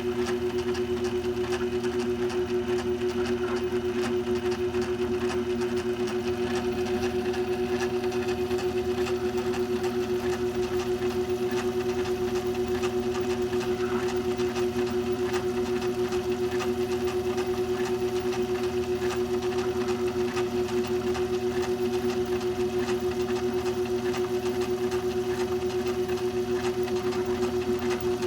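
Craftsman 109.21270 lathe running under power from a salvaged treadmill motor, its power feed engaged while it takes a cut. The sound is a steady hum with a fast, even flutter that does not change.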